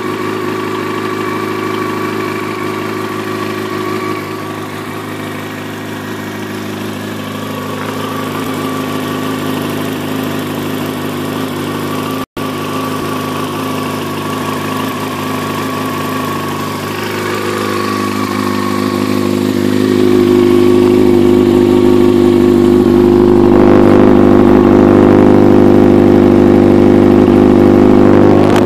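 Yamaha YZF-R6 inline-four engine idling steadily while warming up after a cold start. It grows louder about twenty seconds in, with a brief dropout near the middle.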